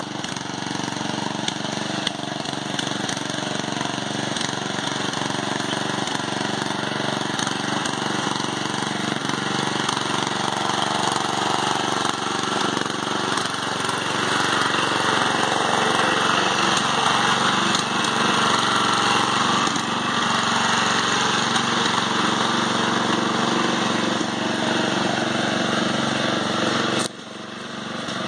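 Murray riding lawn mower's engine running under load as it churns through a deep mud hole, getting louder as it comes close and then fading as it pulls away, with mud and water splashing from the tyres.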